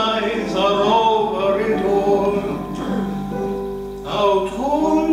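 A man singing solo, with several long held notes.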